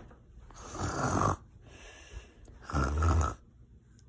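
A person making a rough, breathy noise twice, each time for about a second, to get a baby to laugh.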